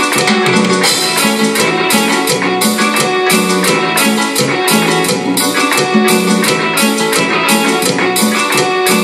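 Cumbia played on a Korg X3 synthesizer keyboard over a steady backing beat, with percussion about four strokes a second and a repeating bass line.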